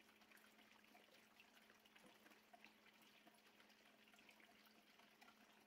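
Very faint trickle of water poured from a plastic jug into a plastic 2-liter soda bottle, barely above near silence, with a faint steady low hum underneath.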